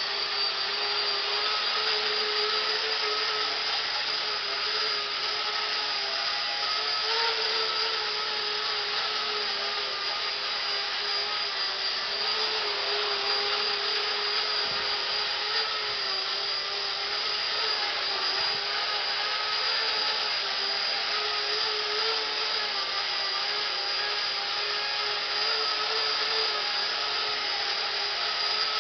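Walkera CB180Q micro RC helicopter in flight, its electric motor and rotor blades giving a steady whine whose pitch rises and falls slightly.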